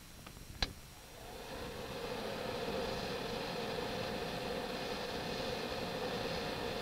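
Small electric centrifugal blower with a squirrel-cage impeller starting up about a second in, coming up to speed and then running steadily with a hum and an airy hiss; this is a demonstration of impeller balancing for noise reduction. Two light clicks come just before it starts.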